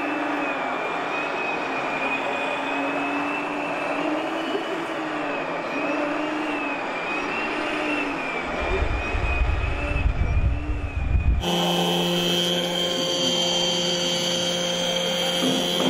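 Radio-controlled model Scania 8x4 tipper truck driving over sand, its drive whining in a pitch that rises and falls every second or two, with a deep rumble added for a few seconds. About eleven seconds in the sound switches abruptly to the steadier whine of an RC Cat roller.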